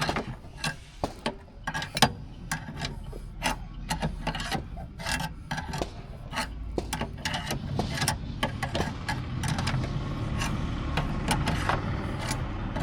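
A car's jack being cranked up with a spanner as it lifts the car: irregular metal clicks and scraping, turning into a steadier rasp in the second half.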